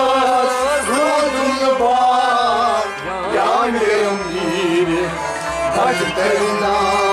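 Kashmiri Sufi devotional song (a kalaam): a singer's voice over instrumental accompaniment with held tones.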